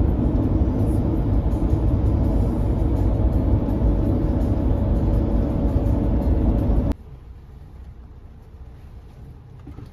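Minibus driving, heard from inside the passenger cabin: a loud, steady low rumble of engine and road with a faint steady hum. It drops suddenly about seven seconds in to a much quieter cabin drone.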